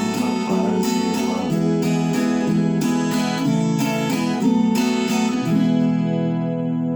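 Viola caipira playing the instrumental ending of a caipira song: strummed chords, then about five and a half seconds in a final chord is left ringing and begins to fade.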